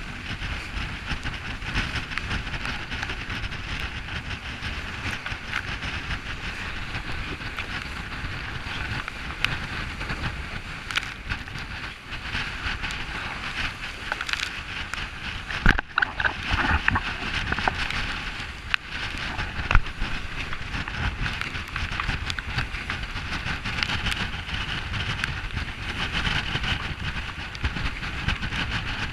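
Water and wind rushing past a trimaran sailing at speed, with spray spattering, and a few sharp knocks about halfway through.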